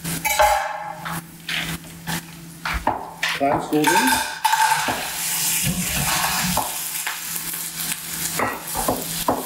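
Onions and garlic sizzling in a stainless steel sauté pan. A few seconds in, clams are tipped in from a pot and clatter against the metal, and the sizzle then grows denser and louder.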